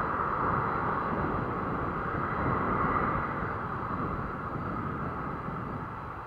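Boeing 747 jet engines running at taxi power, a steady whine over a low rumble, a little louder about three seconds in and easing off toward the end.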